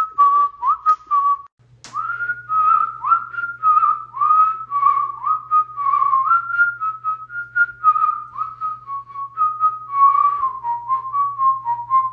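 A person whistling a tune: a string of short notes, many starting with a quick upward slide. There is a brief break and a sharp click about two seconds in, then the whistling goes on.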